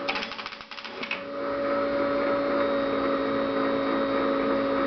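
Tracor AN/UGC-129 airborne teletype: a quick, even mechanical clatter for about the first second, then the machine's steady running hum and whine.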